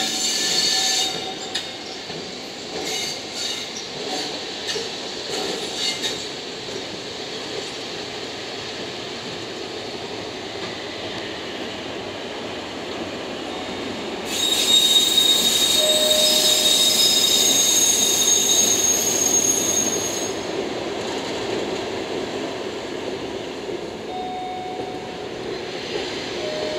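Two JR Freight electric locomotives, EF510-21 coupled to the EF67-105 shunting engine, rolling slowly over the yard tracks. Their wheels click over rail joints and points in the first few seconds, then squeal on a curve with steady high-pitched tones for about six seconds from around the middle.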